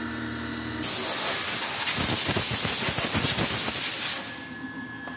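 Compressed-air blow gun hissing in one burst of about three and a half seconds, blowing chips and coolant off a freshly milled steel knife blank. It starts about a second in and cuts off near the end, leaving the machine's low hum.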